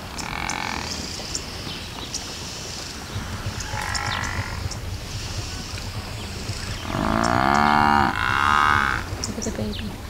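Cape buffalo calling with deep, drawn-out moo-like calls. Shorter, fainter calls come about half a second and four seconds in, then two long, loud calls back to back near the end, each one arching and falling in pitch.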